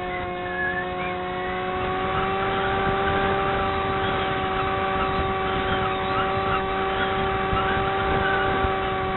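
Model airplane's motor and propeller running at a steady pitch, recorded from a camera on board the plane, with air rushing over the microphone.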